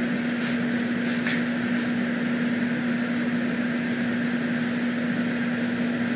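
Wall air conditioner running: a steady hum with one constant low tone. A few faint light ticks come in the first second and a half.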